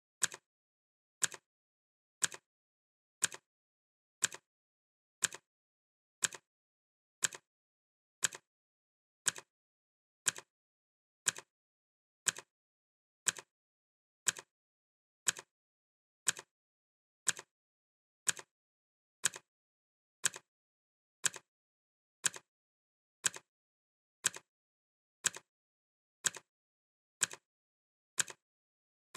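Clock ticking sound effect: one sharp tick every second, each with a fainter second click right after it.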